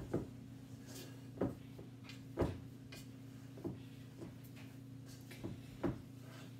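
Spatula stirring thick cookie dough in a stainless steel mixing bowl, giving a handful of irregular knocks and scrapes against the bowl over a low steady hum.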